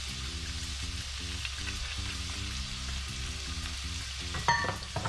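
Chopped onions sizzling steadily in olive oil in a stainless steel saucepan on a gas burner. A single sharp metallic clink rings out about four and a half seconds in.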